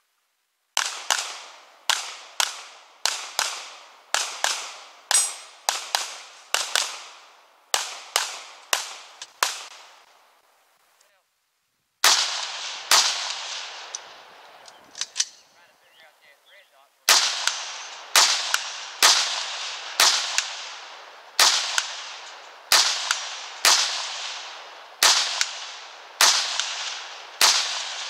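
Gunshots fired in rapid strings, roughly one every half-second to second, each with a short echo. The first string comes from a handgun. After a brief break a second string follows near the end.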